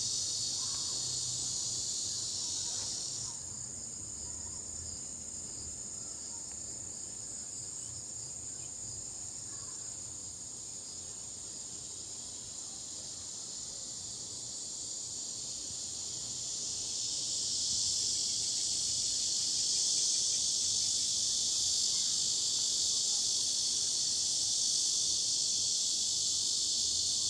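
A continuous high-pitched chorus of insects. It drops away about three seconds in, leaving a thinner steady shrill, then swells back up louder after about seventeen seconds.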